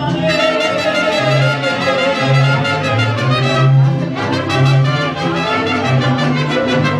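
Mariachi band playing an instrumental passage, with trumpets carrying the tune over a repeating low bass line.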